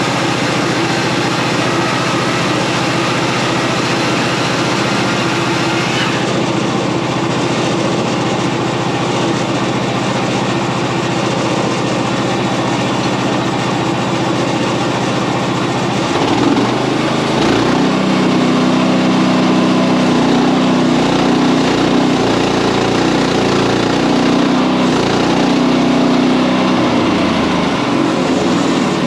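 Frontier OS31 portable band sawmill running, its small gas engine holding a steady note while the band blade saws through a large elm log. About halfway through, the engine note drops and gets a little louder for about ten seconds, then eases back near the end.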